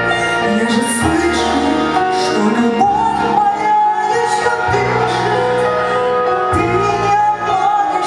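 A woman singing live into a handheld microphone, holding long notes with vibrato over instrumental accompaniment with a held bass line and light cymbal splashes.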